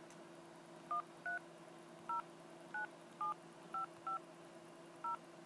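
iPhone 3GS keypad dialing: eight short touch-tone beeps at an uneven pace, each a pair of pitches, as a phone number is tapped in.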